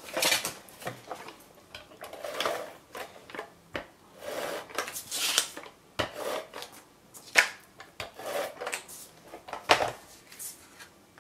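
Scotch Advanced Tape Glider (ATG tape gun) run along the edges of a cardstock mat to lay double-sided adhesive strips: several short noisy runs of the dispenser, with a few sharp clicks between them.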